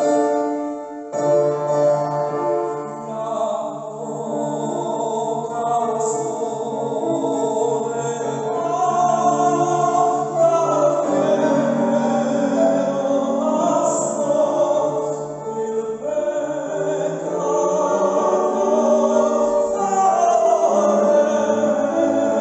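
Classical tenor singing with grand piano accompaniment. The piano plays chords alone at first, and the voice enters a few seconds in.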